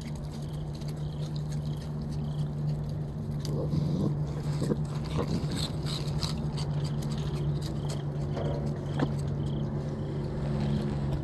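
Raccoon crunching and chewing cheese-puff balls and nosing their plastic bag, a scatter of small crackles and clicks, over a steady low machine hum.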